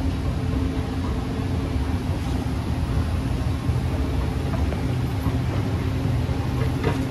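Escalator running: a steady low mechanical rumble with a faint even hum underneath.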